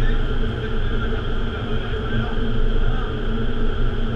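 Indoor vertical wind tunnel running: a loud, steady rush of air through the flight chamber, heard as wind on the microphone, with a steady hum of two held tones from the tunnel's fans.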